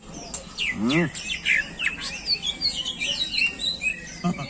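Caged cucak ijo (green leafbird) singing a rapid run of high chirps, trills and short whistles. About a second in there is a brief rising call, like a voice.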